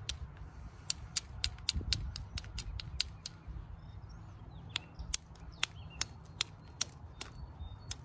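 Rapid sharp clicks, about three or four a second with a short lull midway, as small flakes are taken off the edge of a flint blade being knapped to a point with a small hand-held flaker. A low wind rumble runs underneath.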